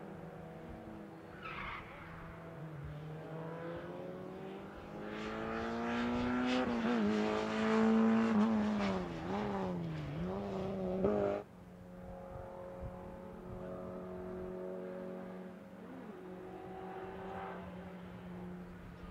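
Rally car at speed on a special stage. Its engine note climbs and grows louder, then rises and dips sharply through gear changes and braking, loudest about eight seconds in. The sound cuts off abruptly a little past halfway, and a steadier, quieter engine note follows.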